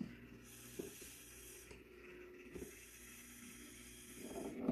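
Breath blown through a drinking straw onto wet alcohol ink, heard as two long airy hisses of a second or two each, pushing the ink into wave shapes.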